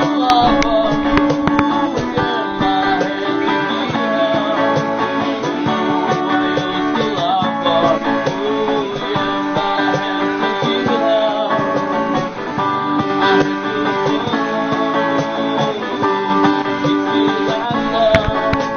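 Background music led by a plucked acoustic guitar, with a held low note and a wavering melody line above it.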